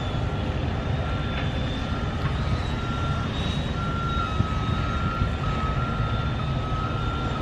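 Construction vehicle's reversing alarm beeping repeatedly, over a steady low rumble.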